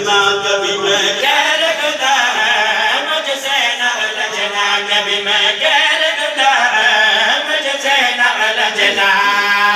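A man's voice chanting a devotional qasida in a melodic, sung recitation, with long held notes and gliding lines.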